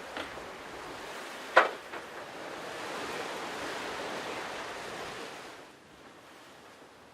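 Sea water washing and rushing past a sailing yacht, with one sharp knock about a second and a half in; the rush dies down near the end.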